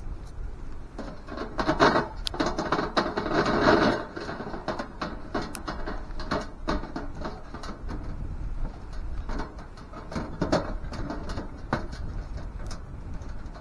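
Irregular small clicks, taps and rattles, busiest from about one and a half to four seconds in, over a steady low rumble of wind on the microphone.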